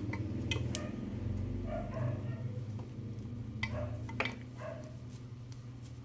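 Small metal clicks and scrapes as the two halves of a twist-on BNC coaxial connector are screwed closed by hand, over a steady low electrical hum.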